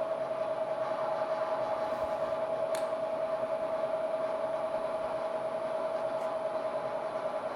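Bridgeport milling machine boring a hole through steel plate with an offset boring head under power feed: a steady whine with a fast, regular pulsing as the single-point cutter turns. A brief click about three seconds in.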